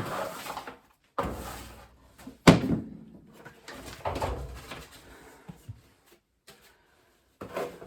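A series of separate knocks and clunks, with one sharp bang about two and a half seconds in.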